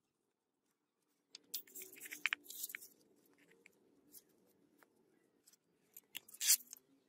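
Hands packing and pressing sand into a wooden box: gritty crunching and scraping in short bursts, loudest a couple of seconds in and again near the end.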